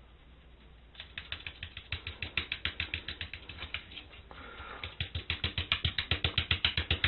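Rapid tapping, about six to seven taps a second, growing louder about five seconds in: a small white dog being patted and scratched hard on the rump, its feet tapping on a tile floor.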